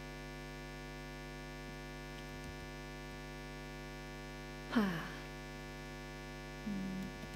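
Steady electrical mains hum through the sound system. A brief voice-like sound with a falling pitch comes about five seconds in.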